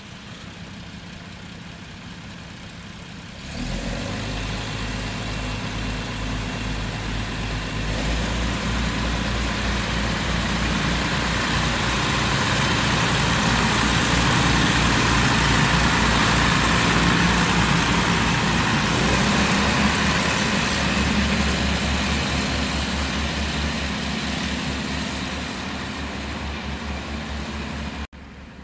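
HŽ 7122-series diesel railcar pulling away: its diesel engine runs quietly, then opens up with a sudden step in loudness about three and a half seconds in. The rhythmic engine throb and a broad rolling noise grow louder as the train passes close by, then fade, and the sound cuts off abruptly near the end.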